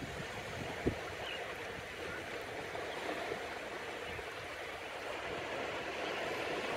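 Small surf washing steadily onto a sandy beach, with wind gusting on the microphone.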